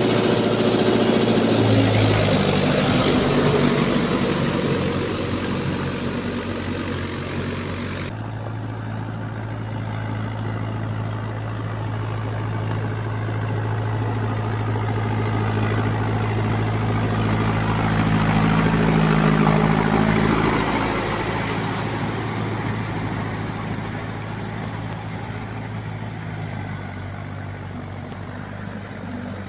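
Mahindra Yuvo 585 tractor's diesel engine running steadily under load as it drives a rotavator through wet paddy mud. The sound changes abruptly about eight seconds in, is loudest about two-thirds of the way through, then grows fainter near the end.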